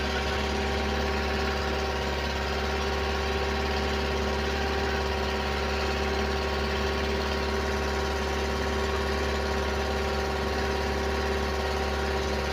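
A boat's engine running at a steady speed while the boat is under way, a constant drone that does not change.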